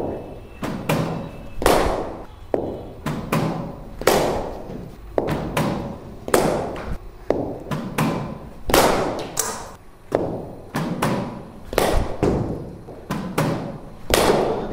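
A series of thumps, irregular at roughly one a second, each fading out briefly after the hit.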